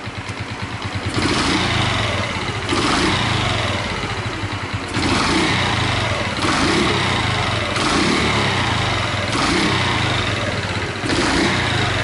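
Honda Chaly's single-cylinder four-stroke engine running, swelling in regular surges about every second and a half. Through it comes a light clattering ("kata-kata") that the owner feels comes from the cylinder head, perhaps from two places: the noise he suspects of the cam chain and head area.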